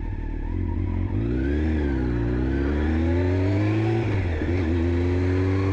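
Engine sound from a Honda CBR 600 F4 inline-four sitting at idle in traffic. An engine note sways up and down about a second in, climbs steadily, then drops suddenly about four seconds in and holds level.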